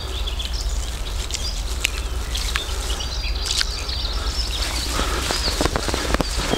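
Small birds chirping over a steady low rumble, with a few sharp clicks; from about five seconds in, a run of scratchy crunching as a hand kneads dry fishing groundbait in a plastic bucket.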